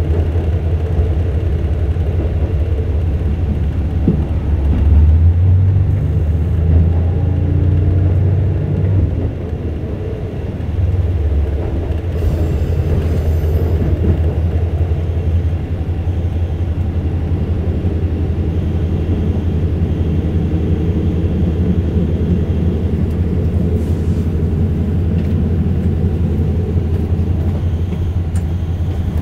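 Cabin noise inside a KiHa 185 diesel railcar under way: a steady low drone of the diesel engine and running gear. It grows louder for a few seconds about five seconds in, dips briefly about ten seconds in, then runs steadily on.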